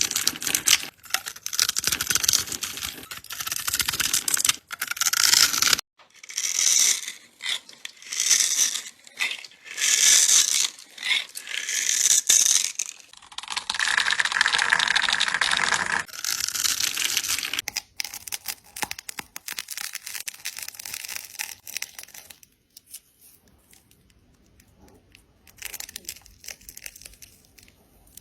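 ASMR cutting: a blade slicing through a crisp material in a series of separate strokes, some short and about a second apart, one drawn out for a few seconds. The cuts turn fainter about two-thirds through and stop briefly before a few soft ones near the end.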